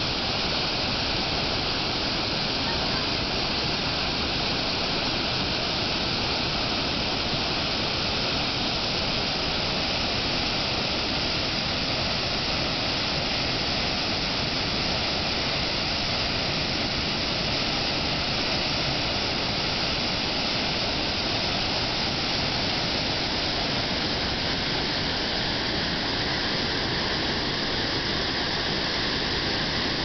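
Steady rushing of flowing river water, an even hiss that holds at one level throughout.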